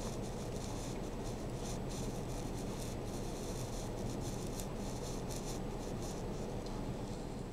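Model train running along the layout track: a steady motor hum with a scratchy run of small clicks from the wheels on the rails.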